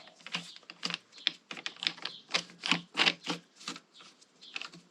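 Click-type torque wrench worked by hand, giving a string of irregular sharp clicks, a few a second, as its freshly lubricated mechanism is loosened up.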